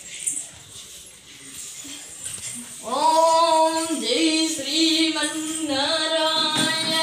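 A child's voice singing a devotional chant with long held notes, starting about three seconds in; before that only a few faint clicks.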